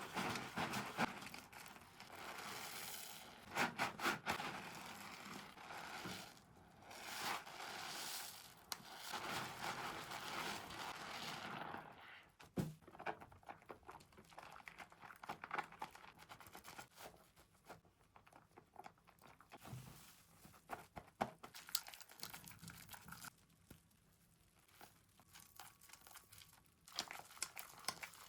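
Thick lather from an argan oil cream soap bar worked by hand, crackling with many small sharp pops over a rubbing, crinkly noise. The rubbing is dense for the first dozen seconds and then thins to scattered crackles.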